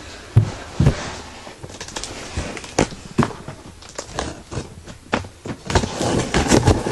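Cardboard shipping box being cut open with a craft knife and handled: irregular scraping, crackling and tearing noises with scattered knocks, and two heavier thumps in the first second.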